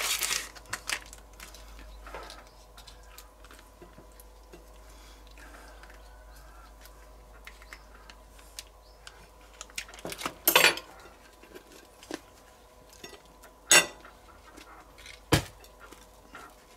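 Knife and fork clicking and scraping on plates while food is cut and spread, with a few sharper clinks, the loudest about two-thirds of the way through and near the end.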